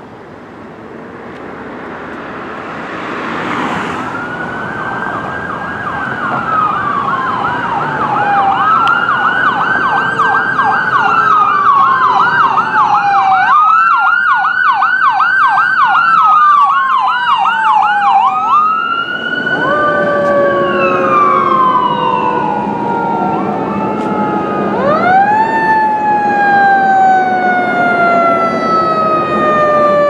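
Ambulance siren wailing, switching to a fast yelp twice. About two-thirds in, a second siren takes over with slow rises and long falling wails as a fire engine approaches, over road and engine noise.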